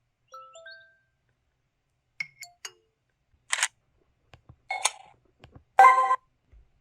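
LG-T390K Wine 3G phone's camera shutter sound effects played one after another: a couple of short electronic beeps, then several separate click-and-shutter sounds, the last and loudest near the end.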